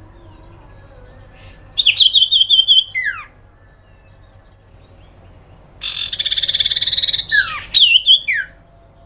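Sirpu (cipoh, a common iora) calling in two bursts. The first burst is a run of about seven quick, high repeated notes ending in a falling slur. The second is a rapid buzzing rattle, the 'grincing' trill, followed by a few high notes that drop sharply in pitch.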